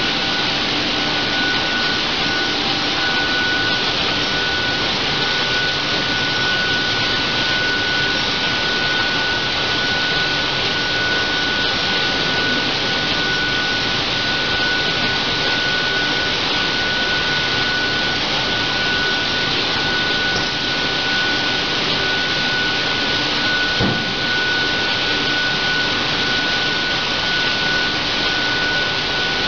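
Turntable pallet stretch wrapper running as it wraps a loaded pallet: a steady hiss-like machine noise with a constant high whine, and one short knock late on.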